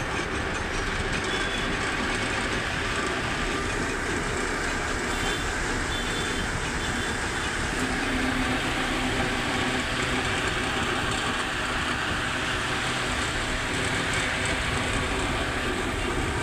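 Table fan running with a steady vibration noise, made worse by three nut-bolts that have come out and left it loose.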